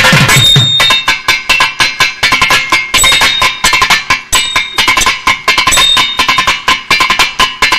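Thavil drum solo: a fast, dense run of sharp strokes on the drum heads. Low strokes that fall in pitch sound only in the first half second.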